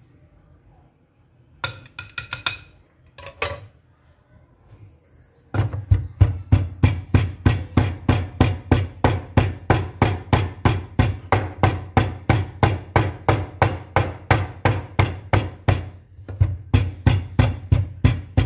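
Wooden pestle pounding dried, shredded pork in a wooden mortar to break up the meat fibres for pork floss: a few scattered knocks at first, then a steady run of strikes, about three a second, with a brief pause near the end.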